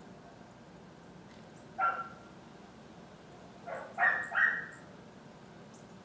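Dog barking off-camera: one bark about two seconds in, then a quick run of three barks about two seconds later.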